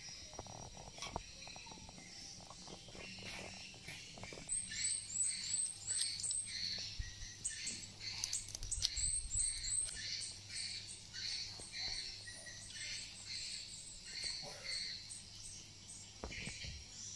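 Small birds chirping outdoors in quick repeated high calls, with runs of short hooked notes about five seconds in and again near ten seconds, over faint insect chirring and a low steady hum.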